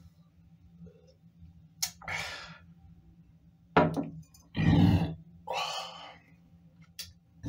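An empty glass beer glass set down on a countertop with a sharp knock about four seconds in, among several loud breathy exhales.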